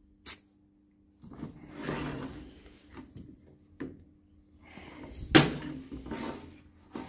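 Handling noises of hard parts on a workbench: a sharp click, then scraping and rattling, a light knock, and one louder knock about five seconds in followed by more scraping.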